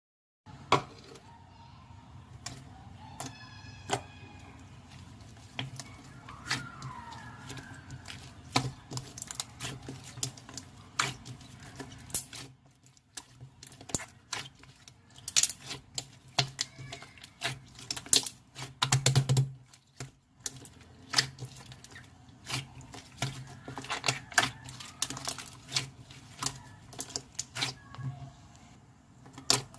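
Slime being squeezed and poked, making irregular sharp clicks and pops over a low steady hum.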